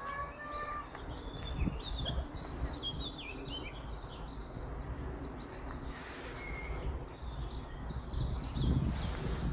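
Small birds chirping and twittering, busiest in the first few seconds, over a steady low outdoor rumble.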